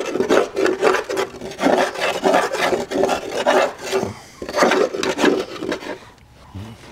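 A long metal bar scraping and chipping rock-hard dried mud off the inside of a steel Cub Cadet XT1 42-inch mower deck, in quick repeated strokes that stop about six seconds in.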